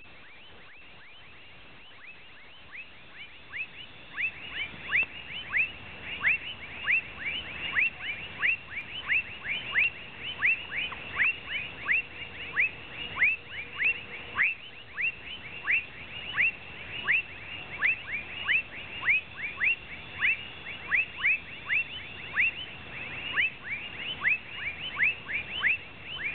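An animal calling over and over: short, high calls that each drop sharply in pitch, about two a second, starting a few seconds in and growing louder.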